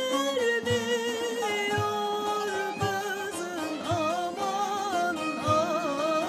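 Turkish Yörük folk song: a woman sings a wavering, heavily ornamented melody over long-necked bağlama lutes holding a drone, with a frame drum striking about twice a second.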